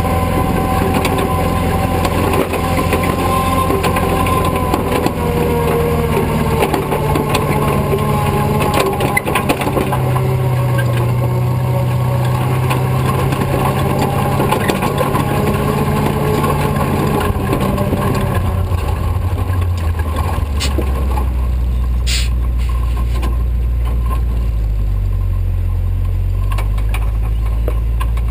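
Tow truck's engine running under load as it pulls an SUV along the beach on a tow rope. The engine note holds steady, shifting in steps, and drops lower about two-thirds of the way through.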